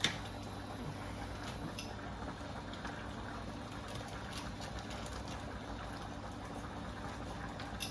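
A pot of food cooking on an induction hob, giving a steady bubbling hiss, with a faint click now and then.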